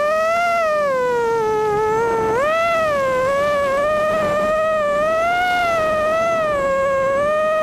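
Brushless motors and propellers of an FPV miniquad heard through its onboard camera: a high whine that sinks, then climbs sharply about two and a half seconds in and keeps wavering up and down with the throttle.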